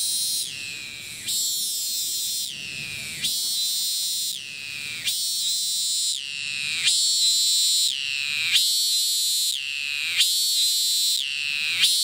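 Cicada calling loudly in a repeating phrase, about one every second and a quarter. Each phrase is a high, shrill steady note that slides down in pitch and then breaks off briefly before the next.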